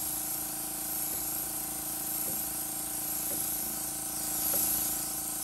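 Iwata Eclipse dual-action airbrush spraying a light coat of thinned paint, a steady hiss of air that swells briefly near the end, over the steady hum of the air compressor running. Faint ticks come about once a second.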